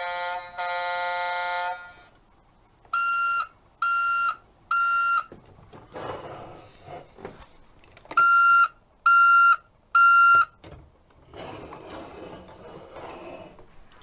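Electronic sound effects from a Tonka toy garbage truck's small speaker. A pitched horn-like tone sounds twice, the second time longer. Then come two sets of three short beeps like a reversing alarm, the second set louder, with stretches of hissing noise between the sets.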